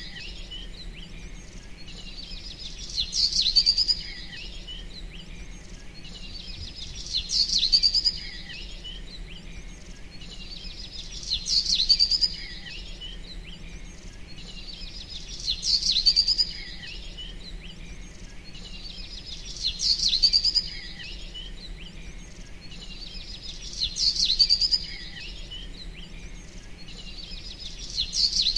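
Bird chirping in short high bursts, the same phrase recurring about every four seconds, seven times, like a looped birdsong track, over a steady low hum.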